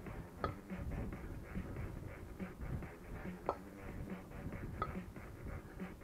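Two 16 kg kettlebells clinking metal on metal three times during clean-and-jerk reps, each a sharp knock with a brief ring.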